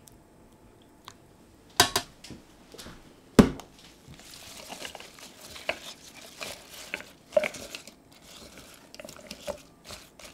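Two sharp knocks, the second the louder, then fresh basil leaves rustling and crinkling as they are dropped and pressed into a plastic food processor bowl, with light clicks of leaves and fingers against the bowl.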